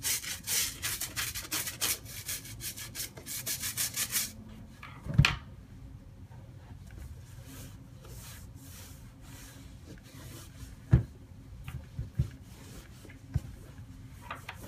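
Rapid back-and-forth scrubbing strokes on a sneaker being cleaned, stopping about four seconds in. A single loud knock follows, then fainter rubbing with a few light knocks.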